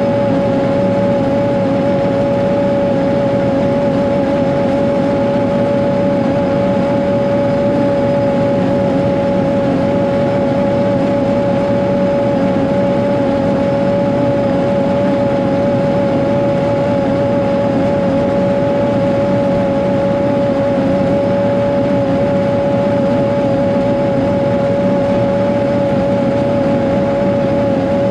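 Caterpillar 140G motor grader's six-cylinder diesel running steadily under load as it drives along grading a dirt road, with a steady whine running through the engine sound.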